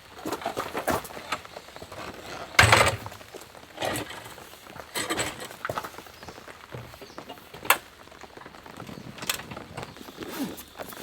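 Irregular knocks, clatters and thuds, loudest a heavy thud about two and a half seconds in and a sharp click near eight seconds.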